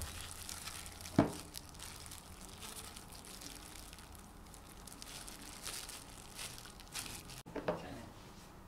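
Clear plastic disposable gloves crinkling and rustling as hands knead and shape soft potato dough in a glass bowl, with one dull thump about a second in.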